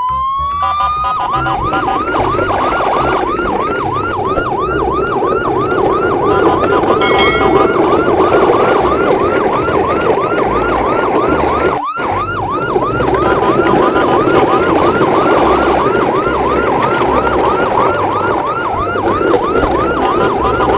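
Emergency-vehicle siren in a fast yelp, a rising-and-falling whoop repeating about three or four times a second over a steady low rumble. It winds up with a rising whine at the start, cuts out for a moment about twelve seconds in, and then resumes.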